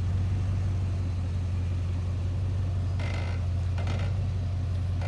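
Lexus LX470's V8 running low and steady as the heavy SUV crawls down a steep rock ledge, with two short creaks about three and four seconds in: the truck's body and suspension straining against gravity.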